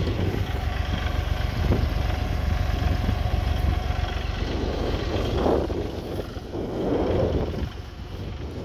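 Bobcat E35 compact excavator's diesel engine running steadily under heavy wind buffeting on the microphone, with gusts swelling about five and seven seconds in.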